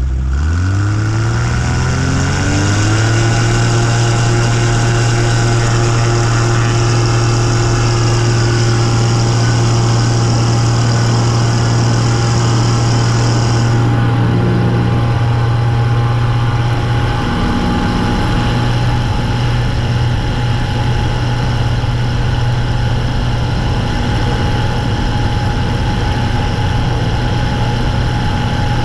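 Rotax engine and propeller of a Zenair 701 STOL ultralight opening up from idle, rising in pitch over about three seconds. It then runs steadily at full throttle for the take-off run.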